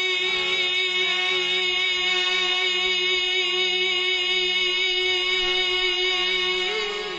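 Devotional naat singing: a voice holds one long note with a slight waver, moving to a new pitch near the end.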